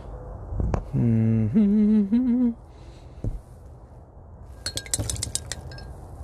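A man hums a short wordless tune a second in, starting low and then jumping higher with a waver. A few seconds later comes a quick run of light clinks.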